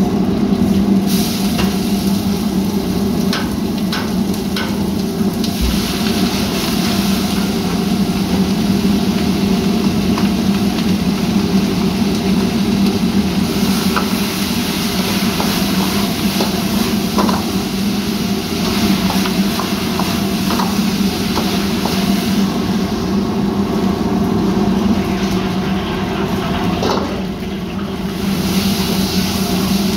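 Restaurant wok range running with a steady, loud low hum of gas burners and kitchen extraction. A metal ladle knocks and scrapes against woks now and then, most around the first few seconds, and frying food sizzles at times.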